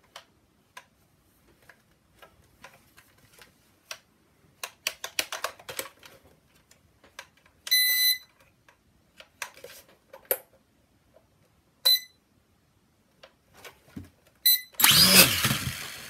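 A small drone being set up gives electronic beeps: one held about half a second near the middle and shorter ones later, among light clicks and taps of handling. A loud rushing burst comes in the last second.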